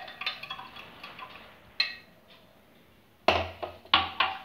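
Glassware clinking and knocking. A run of small clinks comes first, then a sharp clink about two seconds in, then two heavier knocks near the end as glass is set down on a hard surface.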